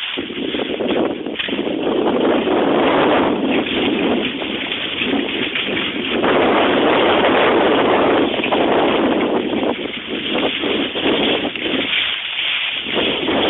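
Rushing noise of skiing fast down a spring snow slope: skis hissing and scraping over the snow and wind blowing on the microphone, swelling and dipping in surges.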